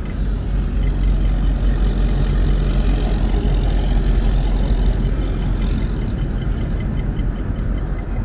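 Road traffic: vehicle engines and tyres running with a steady low rumble.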